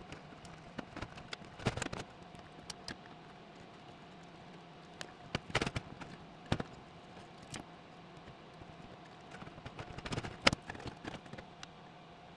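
Scattered sharp clicks and knocks, several in quick clusters, over a faint steady electrical hum.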